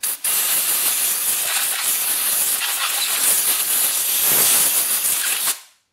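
Compressed-air blow gun giving one long, steady hiss as it blows dust out of a lawnmower's air filter housing, cutting off suddenly near the end.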